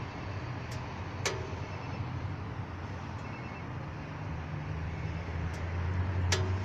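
Chevrolet Niva engine running with a steady low hum that swells from about four seconds in. Two sharp clicks, one about a second in and one near the end.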